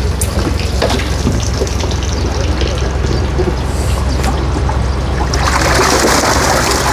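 Water pouring and splashing steadily as live crucian carp are released from a transport tank into the pond, growing louder about five seconds in, over a low steady hum.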